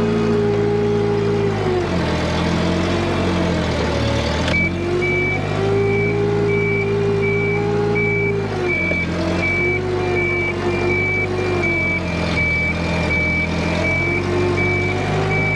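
A heavy machine's engine runs, its pitch going up and down as it works under throttle. From about four and a half seconds in, a reversing alarm beeps at a steady pace.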